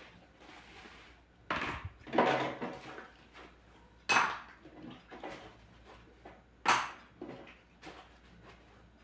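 Plates and cutlery clinking and clattering as they are washed by hand in a kitchen sink, with a few sharp, loud clinks among softer scraping and handling.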